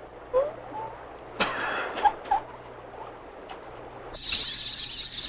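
A few short sounds: a brief rush of noise and a couple of short chirp-like tones. Then, starting suddenly about four seconds in, many birds chirping over a steady high-pitched insect buzz.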